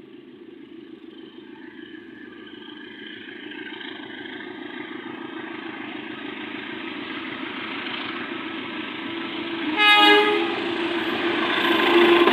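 An approaching train's diesel locomotive, its rumble growing steadily louder, with one short horn blast about ten seconds in.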